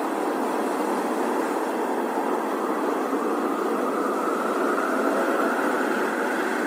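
Steady rushing noise, a sound-effect ambience, swelling a little about four to five seconds in as a higher edge comes up.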